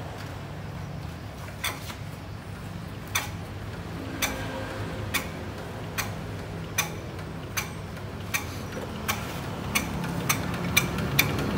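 RT140 Plus single-cylinder diesel engine being turned over by hand before starting. Sharp clicks come faster and faster as it spins up.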